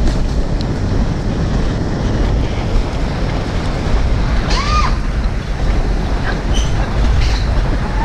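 Alpine-coaster bobsled car running fast along its steel tube rails: a steady rumble of the wheels on the track with air rushing over the microphone, and a brief squeal about halfway through.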